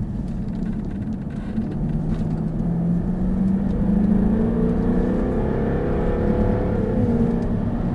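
Jaguar F-Type's supercharged engine pulling hard under acceleration, heard from inside the cabin over road rumble. Its pitch climbs steadily for several seconds, then dips briefly near the end.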